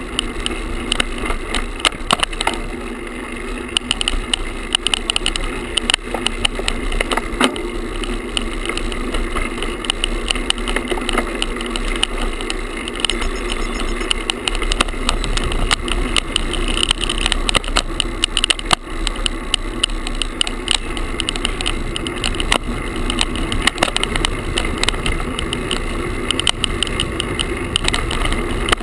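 A handlebar-mounted action camera, tied on loosely with a shoelace, rattling and vibrating against the bars of a moving road bike. Rapid irregular clicking over steady rolling road and wind noise.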